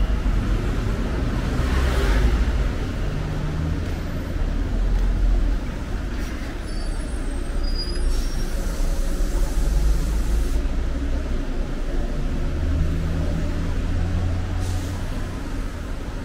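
Road traffic on a city street: the low, steady rumble of passing engines, with one vehicle hissing past close by about two seconds in.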